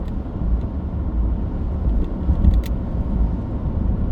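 Steady low vehicle rumble of engine and road noise, heard from inside the vehicle, with a few faint clicks about two and a half seconds in.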